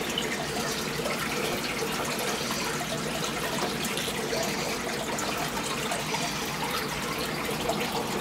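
Aquarium aeration running: a steady bubbling and trickling of water from streams of air bubbles rising through the tank.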